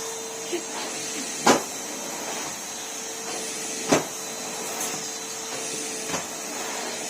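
Numatic Henry vacuum cleaner running steadily, a constant hiss with a steady hum. Two sharp knocks break in, about a second and a half in and again about four seconds in.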